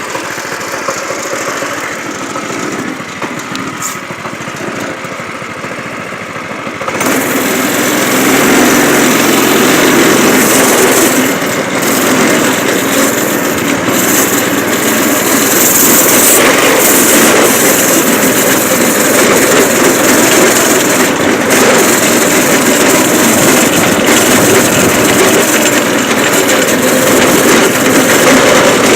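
Predator 212cc single-cylinder go-kart engine idling. About seven seconds in it is throttled up and then runs steadily at high revs under load as the kart is driven.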